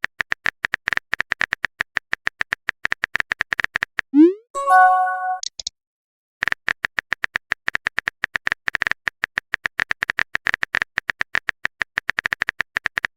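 Rapid typing-click sound effect, about ten clicks a second. About four seconds in, a quick rising swoosh and a short notification chime, then the typing clicks start again.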